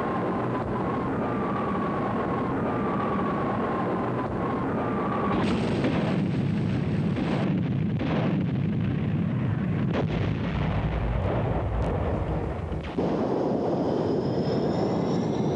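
Military jet noise, then a string of bomb explosions rumbling heavily about two-thirds of the way through; near the end the sound switches suddenly to a jet whine rising in pitch.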